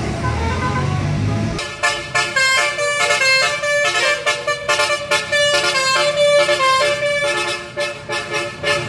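Bus engine and road rumble, then from about a second and a half in a bus 'telolet' multi-tone air horn plays a fast melody of rapidly changing notes.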